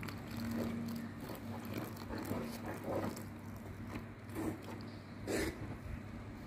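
Fork stirring and scraping through flour, egg and water in a stainless steel bowl: irregular soft scrapes as the batter is mixed, the loudest stroke about five seconds in. A steady low hum runs underneath.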